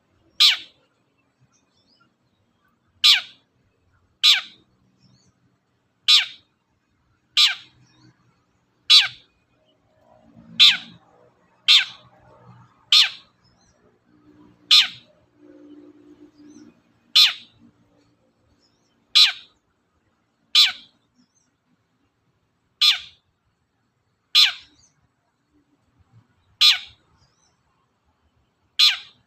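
Long-tailed shrike (cendet) calling loudly and persistently. It gives a short, sharp, quickly falling note about every one to two seconds, the lure call used to set other shrikes singing.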